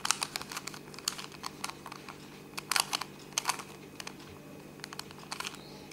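Scattered light clicks and crinkles of small plastic puzzle parts and packaging being handled, coming in short clusters, over a faint steady hum.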